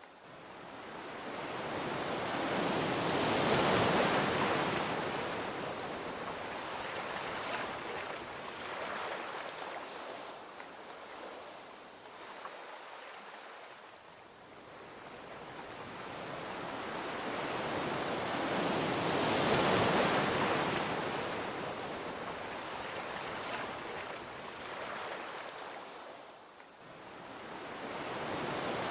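Gentle ocean waves washing onto a beach: a slow surf noise that swells to a peak about four seconds in, ebbs away, then builds to a second peak about twenty seconds in and draws back again.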